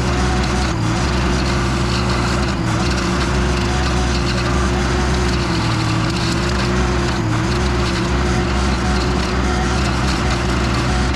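Toro stump grinder attachment on a Case TL100 mini track loader cutting into a wood stump, the grinder wheel chewing wood over the machine's steady engine and a wavering whine.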